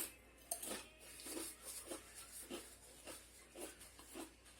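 A person chewing a crunchy chip, soft chews coming about two to three times a second.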